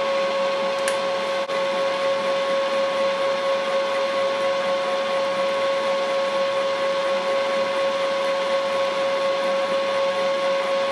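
Vertical milling machine running with a steady whine as its end mill takes a light skim cut across the top of a vise jaw.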